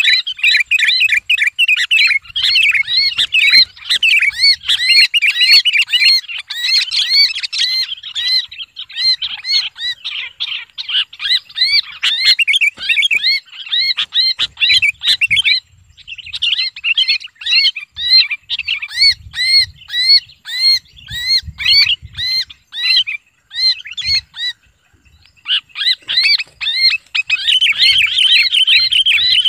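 Sooty-headed bulbul screaming in distress while held in the hand: a fast, harsh run of short rising-and-falling calls, several a second, breaking off briefly about halfway and again for a couple of seconds before picking up. This is the distress call used as a lure to draw other bulbuls in.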